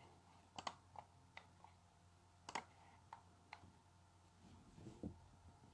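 Near silence broken by faint, irregular clicks, about eight in the first few seconds, then a soft low rustle near the end.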